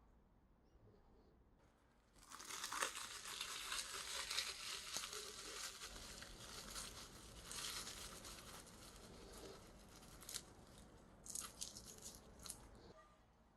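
Crinkling and tearing sounds begin about two seconds in and run on for several seconds, with a few sharper crackles near the end.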